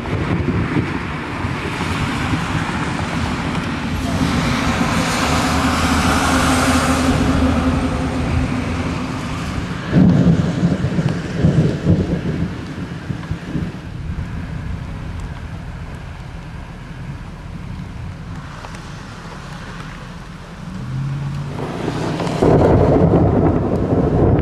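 Thunder rolling and rumbling in several long swells, with sharp loud claps about ten and twelve seconds in and another rumble building near the end.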